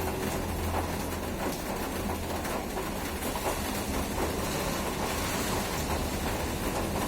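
Steady rain falling, a dense even hiss with fine drop impacts, over a low rumble that fades about a second in.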